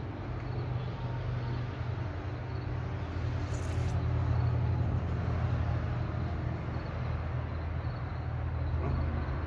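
A steady low hum, a little louder in the middle, with faint high chirps repeating evenly in the background and a brief high hiss about three and a half seconds in.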